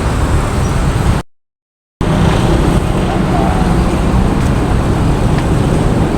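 Steady road traffic noise with a heavy low rumble, broken a little over a second in by a gap of total silence lasting under a second.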